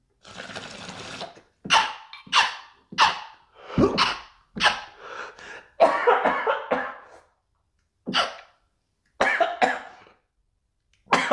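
A man coughing hard again and again after a big bong hit of cannabis smoke. It opens with about a second of steady rush of breath, then harsh coughs come in irregular bunches with short pauses between them.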